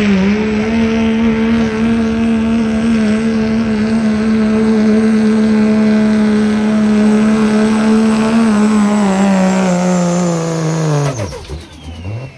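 Turbodiesel Dodge Ram 2500 pulling a sled at full throttle: a steady, loud engine drone with a high turbo whistle above it. The revs sag a little near the end of the pull, then fall sharply about eleven seconds in as the throttle is let off and the turbo whistle spools down.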